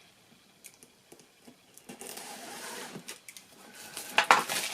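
Plastic shrink wrap being torn and peeled off a board game box: a few faint clicks, then crinkling that grows louder, with sharp crackles near the end.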